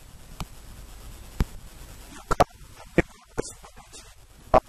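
A man's talking voice coming through only in short clipped bursts, scattered over a low steady hiss.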